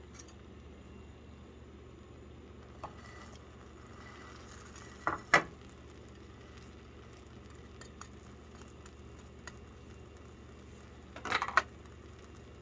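Metal spatula scraping and knocking against a frying pan in two short clatters, about five seconds in and again near the end, over a faint steady sizzle of egg-soaked bread frying.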